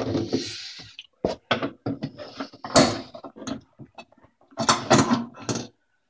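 Handling noise: an irregular run of knocks, clicks and scrapes as fingers and the phone work against the dishwasher's tub, with a short hiss in the first second.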